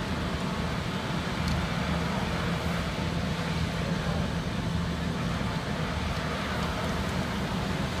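Rice husk powder biomass burner firing: a steady rushing noise from the flame jetting out of the burner and its blower, with a steady low hum.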